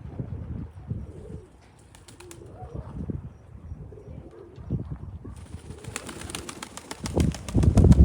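Domestic pigeons cooing. About five seconds in, a dense rapid rustling starts, and a loud low wind rumble on the microphone builds near the end.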